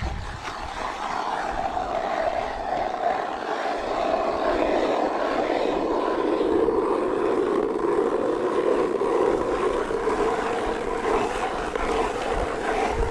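Ice auger driven by a power drill, boring through lake ice with a steady motor whine. Its pitch drops and settles lower about four seconds in as the auger bites, then the drill cuts off suddenly at the end.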